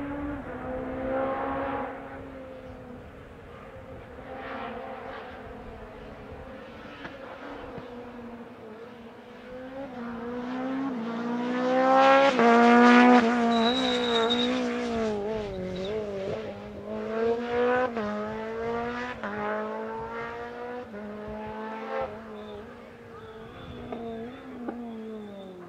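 Rally car engine at hard throttle on a special stage, rising in pitch and dropping back with each gear change. It swells to a loud pass about twelve seconds in, with a short high squeal just after, then fades as it pulls away up through the gears.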